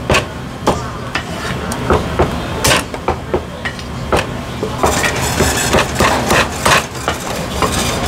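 Cleaver chopping on a wooden block: irregular sharp knocks, coming faster in the second half, over a steady background hum.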